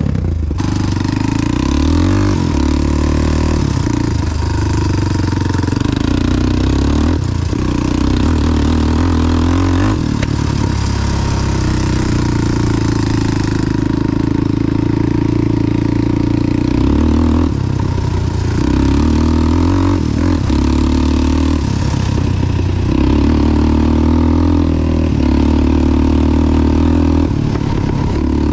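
A big-bored Honda 400EX ATV's single-cylinder four-stroke engine running under way, its pitch stepping up and down every few seconds with the throttle.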